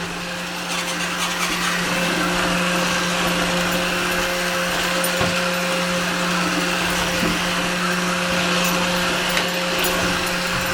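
Roomba robot vacuum running with a steady motor whir and hum, growing slightly louder over the first couple of seconds.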